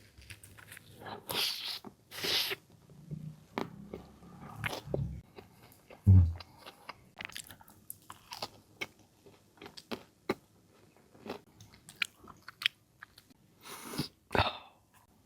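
Close-miked biting and chewing of a crispy fried chicken roll: irregular crunches and crackles of the crust, with a low thump about six seconds in.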